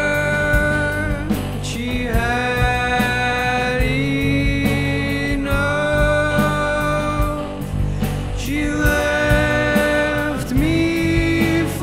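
Rock band song: a young male voice sings long held notes, sliding between them, over electric guitar, bass and a steady beat.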